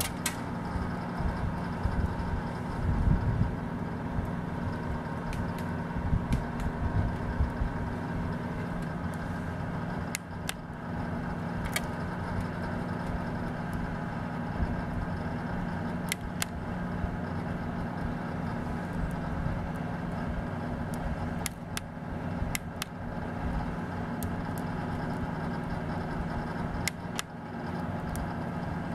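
Alaska Kodiak Stoker Stove III running on rice coal: a steady hum from its motor and fan, with a handful of sharp ticks scattered through it.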